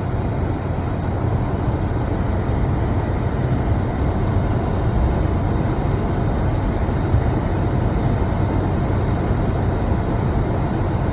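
Mercedes-Benz car under way, with steady engine and road noise heard from inside the cabin; the exhaust and muffler are freshly repaired.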